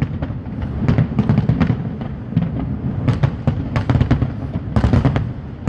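Fireworks display: many rapid, overlapping bangs and crackles over a continuous low rumble of booms.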